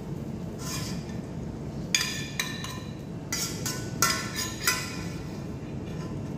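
About eight ringing metallic clinks, irregularly spaced, from a utensil knocking against a cooking pan, over a steady low background noise.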